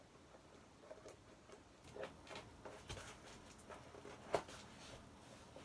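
Faint scattered clicks and rustles of packaging being handled and opened by hand, with one louder sharp tap a little after four seconds in.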